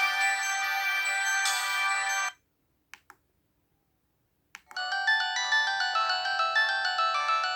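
Polyphonic ringtones played by a Samsung SPH-A790's Yamaha SMAF sound chip: one melody cuts off about two seconds in, two faint clicks sound in the short silence that follows, and a new ringtone melody starts just before the five-second mark.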